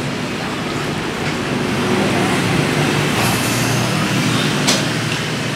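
Steady street traffic noise, with a sharp click about three-quarters of the way through.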